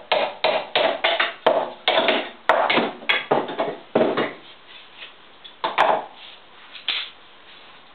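Small hammer rapidly pounding on a wooden stick, about four blows a second, stopping after about four seconds; two single knocks follow later.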